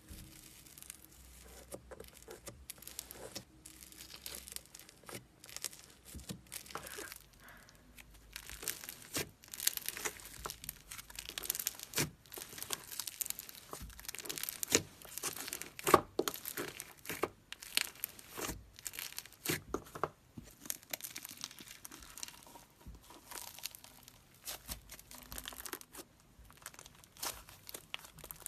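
Bubbly slime being worked by hand: a dense run of crackling pops as air bubbles in it burst. The crackling is busiest and loudest in the middle, with a couple of sharp pops.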